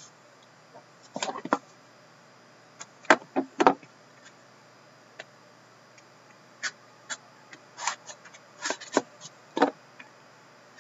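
Hands opening a box of hockey cards: scattered taps, clicks and scrapes of fingers and nails on the box as the lid is worked loose. The loudest are two sharp clicks about three seconds in, with another cluster of clicks in the last few seconds.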